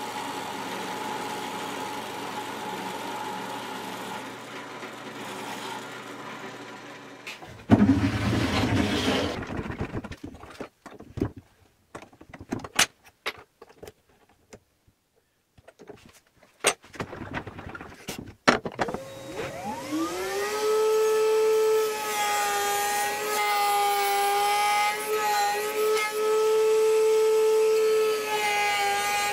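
Drill press running for the first several seconds, then a loud rough burst about eight seconds in, followed by a series of scattered knocks and clicks. Near the end of the second third a router in a router table spins up with a rising whine and then runs steadily at full speed.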